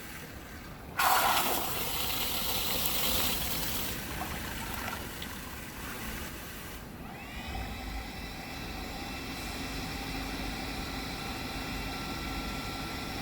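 Smart toilet bidet seat: a rushing hiss starts suddenly about a second in. Then, about seven seconds in, the warm-air dryer's fan motor spins up into a steady whine as the drying function runs.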